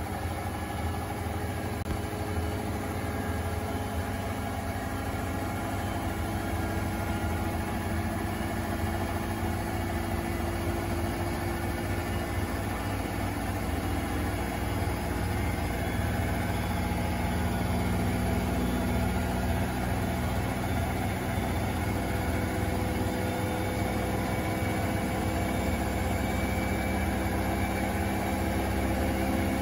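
Front-loading washing machine spinning its drum: a steady low rumble with a motor hum that climbs slowly in pitch and grows a little louder as the spin speed builds.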